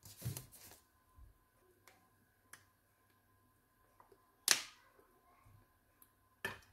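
Cooking oil poured from a plastic bottle into a frying pan: mostly quiet, with a few light clicks from handling the bottle and two sharper clicks, one about halfway and one near the end. The oil does not sizzle.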